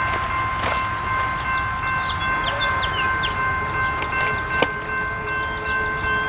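Low, steady rumble of a BNSF freight train's diesel locomotives standing or barely creeping. Over it run a steady high whine of several held tones and a scatter of short chirps, with one sharp click about four and a half seconds in.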